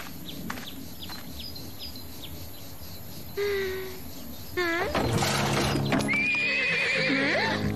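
A horse whinnying in several calls: a short one, then a quick rising trill, then a long quavering whinny. Light music comes in about five seconds in.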